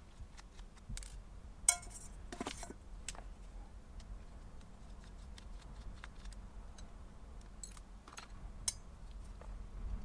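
Scattered light clicks and taps of small hand tools and parts being handled on a workbench, with a sharper click about two seconds in.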